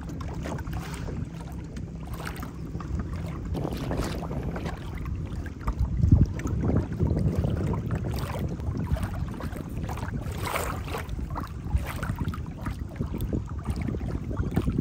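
Wind gusting across the microphone, with choppy water slapping against a kayak's hull in uneven surges.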